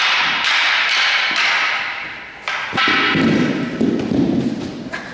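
Thuds and knocks of staff sparring: long wooden staffs striking together and a body hitting the padded mat.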